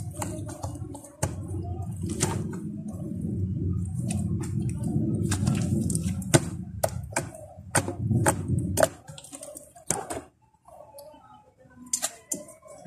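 Slime being worked by hand: a run of sharp sticky clicks over a steady low rustle. The rustle stops about nine seconds in, leaving only a few scattered clicks.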